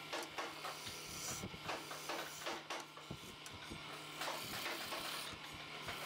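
Wood lathe running with a steady low hum while a hand chisel cuts a spinning wooden chair leg, giving irregular scraping strokes over a rushing noise.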